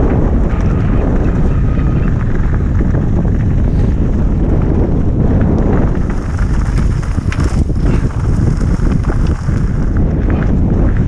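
Heavy wind noise buffeting the microphone during a fast mountain-bike descent, over the rumble and crunch of tyres rolling on a loose gravel track.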